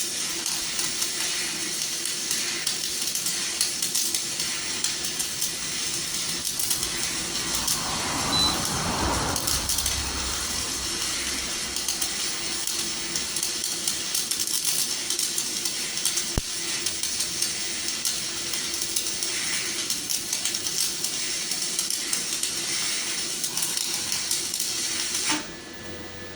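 Electric arc welding: the arc's steady crackling sizzle, dense with small pops, which cuts off suddenly near the end.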